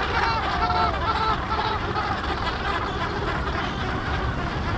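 Cape gannet breeding colony calling: a dense, continuous din of many birds' harsh cackling calls, with a few clearer, nearer calls in the first second or so.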